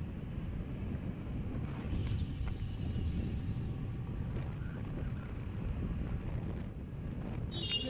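Wind buffeting the microphone with a steady low rumble of a moving vehicle.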